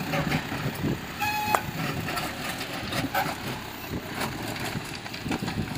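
Tractor-mounted Abel backhoe digging into rubble: the tractor's diesel engine running under load, with stones clattering and knocking against the bucket. A short high toot sounds about a second and a half in.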